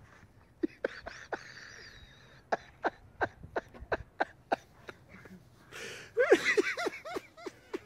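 A person laughing in short, rhythmic bursts, about three a second, then breaking into louder laughter near the end.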